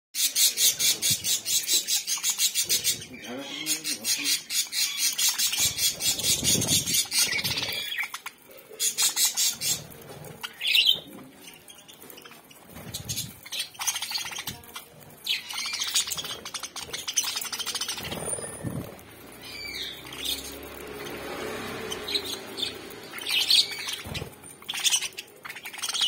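A flock of budgerigars chirping and chattering, opening with a quick run of repeated high chirps, then scattered chirps and squawks.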